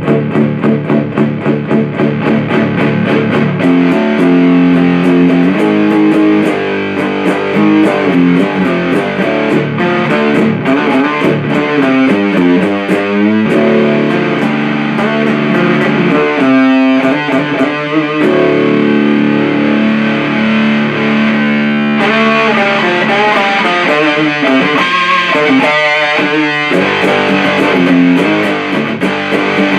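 Electric guitar played through a 77 Fuzz Blender fuzz pedal into an Orange Super Crush 100 amp: distorted riffs. It opens with fast repeated picked chugs, moves to held chords, and turns brighter and harsher about two-thirds of the way through.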